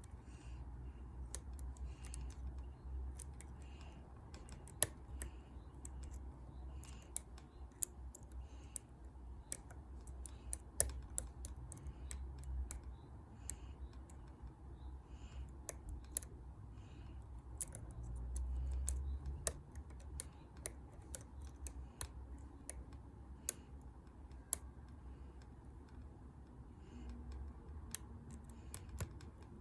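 Hook pick and tension wrench working the pin stack of a Master Lock 140 padlock: faint, irregular small clicks and light scratching as the pins are lifted, with low rumbling handling noise.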